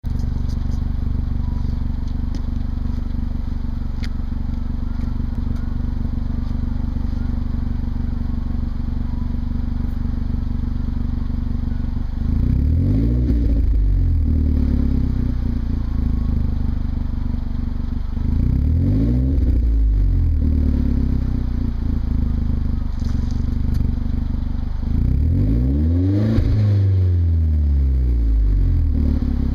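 2010 Hyundai Genesis Coupe engine running through a TurboXS GT Spec 3-inch cat-back exhaust with quad tips and a deep tone: a steady idle, then three revs about six seconds apart, starting near the middle, each rising and dropping back to idle.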